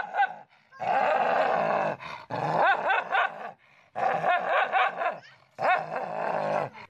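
Dog growling and snarling at its own reflection in a mirror, in four bouts of about a second each with short gaps between them.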